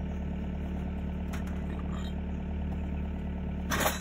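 Excavator's diesel engine idling steadily, with a single sharp metallic clank near the end.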